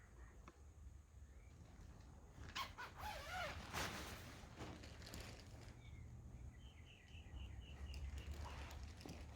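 Birds calling in the morning, faintly: a few gliding calls about three seconds in, then a quick run of repeated high notes near the end, with a few soft rustles.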